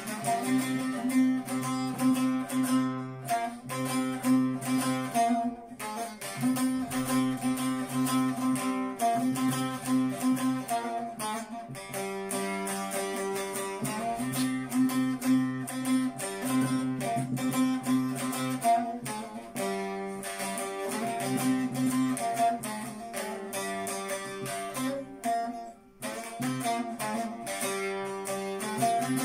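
Bağlama (long-necked Turkish saz) played solo: fast picked notes over steady ringing lower strings, as an instrumental interlude between sung verses. There is a brief pause near the end.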